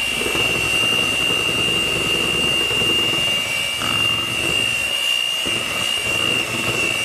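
Electric mixer running steadily, beating cream cheese and butter for frosting, with a constant high motor whine.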